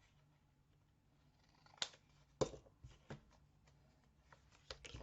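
Paper-crafting handling noises on a work table: a few sharp clicks and light rustles of card and tools. The loudest comes about two and a half seconds in, with smaller clicks near the end.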